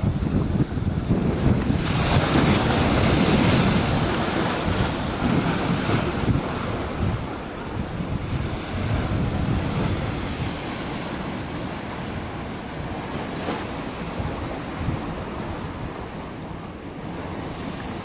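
Wind buffeting the microphone over the wash of sea waves, louder for a few seconds near the start and then easing off.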